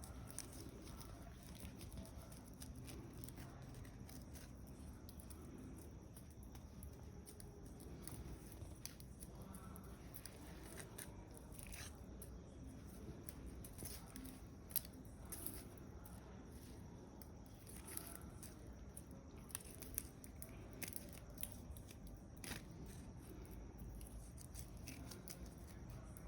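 Cats playing and scuffling: faint, scattered clicks and scratchy rustles, with a sharper click about fifteen seconds in.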